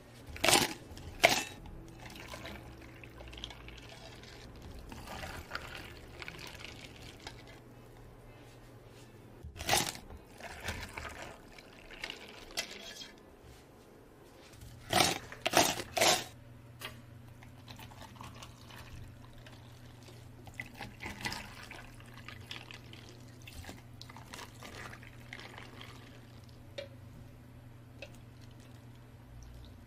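Milk tea drinks being made: liquid poured into plastic cups, with sharp knocks and clatters of cups and utensils, loudest twice near the start, once around ten seconds and in a quick cluster around fifteen seconds.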